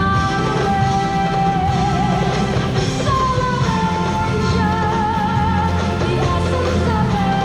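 Music: a melody of long held notes with a wavering vibrato, possibly sung, over a steady, full bass accompaniment.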